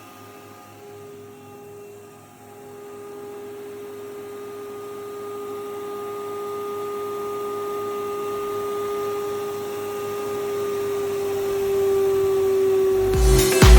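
STU 630 thicknesser (7.5 kW motor, four-knife cutterhead) running with no board in it: a steady hum that grows louder and dips slightly in pitch near the end. Music with a beat cuts in right at the end.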